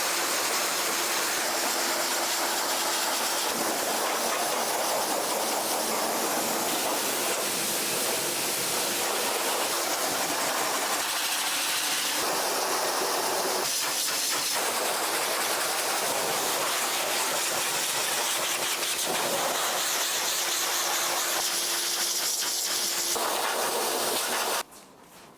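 High-velocity pet dryer blowing a steady, loud hiss of air with a faint motor hum, then cutting off abruptly near the end.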